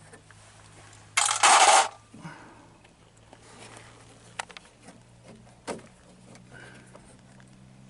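Hand tools working at a W108 Mercedes door's vent window adjuster, prying at a tight-fitting keeper: a short loud rasping noise about a second in, then a few light metallic clicks.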